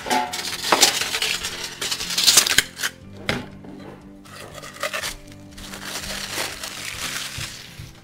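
Background music, with rustling and clatter in the first three seconds as vacuum parts and their plastic wrapping are handled.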